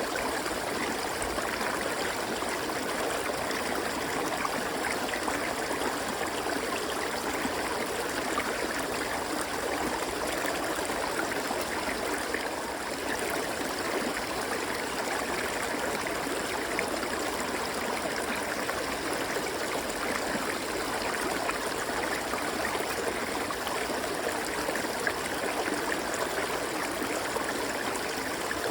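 River water flowing and rushing steadily, with no change in level.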